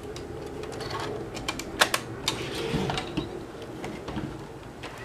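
Scattered plastic clicks and knocks from a JVC S-VHS-C camcorder being handled as a tape is put back into it, with one loud click about two seconds in.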